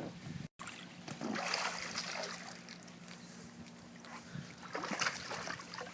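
Pool water splashing and sloshing as the dog moves in it. There is a louder stretch of splashing about a second in and another about five seconds in.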